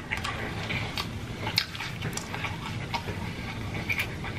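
Close-up chewing of crispy fried food, heard as scattered crunches and wet mouth clicks.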